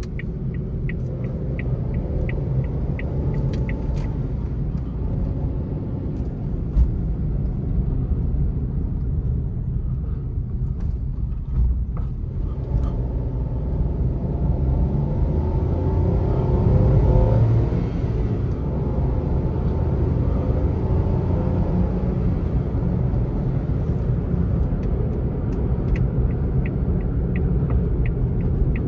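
Steady low rumble of a Suzuki Alto's small 660 cc three-cylinder engine and tyre noise heard from inside the cabin while driving, swelling for a few seconds around the middle. Quick, evenly spaced ticks of the turn-signal indicator sound at the start and again near the end.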